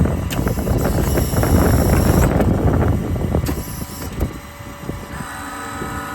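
A heavy truck's diesel engine running, with knocks and rattles. About five seconds in, a steady whine with several even tones comes in.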